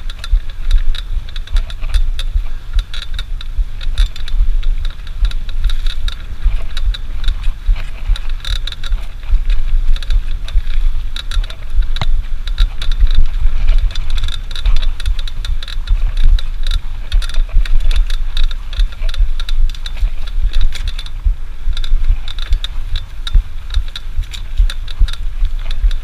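Wind buffeting a GoPro action camera's microphone, a gusty low rumble, with a steady scatter of light clicks and rattles over it.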